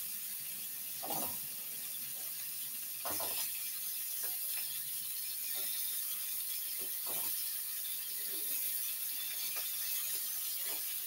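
Pineapple and peppers sizzling steadily in butter in a hot wok, with a few faint clicks as a piece of onion is cut by hand into the pan.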